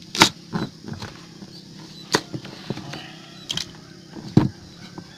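Kitchen knife chopping through a raw peeled sweet potato and knocking on a plastic cutting board: about half a dozen sharp knocks at irregular intervals, over a faint steady low hum.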